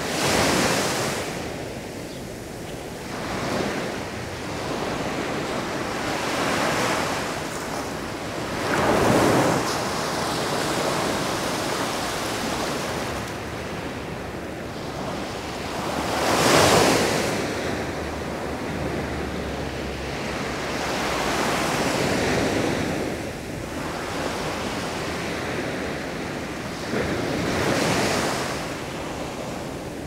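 Sea waves breaking and washing onto a beach, a steady rush that swells into a fresh surge every few seconds at an uneven pace; the two biggest breaks come about a third of the way in and just past halfway.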